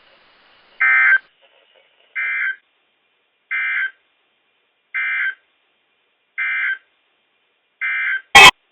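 Short electronic data bursts on the NOAA Weather Radio broadcast, six of them, each about half a second long and repeating roughly every one and a half seconds after the warning message ends, the first a little louder. A sharp, loud click comes near the end.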